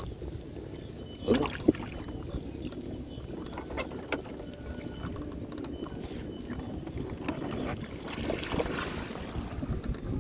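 Wind buffeting the microphone as a steady low rumble, with a couple of sharp knocks about one and a half seconds in and a short rustling stretch near the end.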